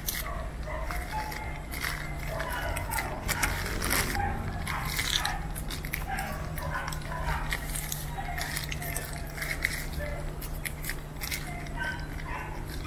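Clear plastic sheet crinkling and crackling in irregular bursts as hands wrap and tie it around a soil-filled air-layering (marcot) ball, over a steady low hum.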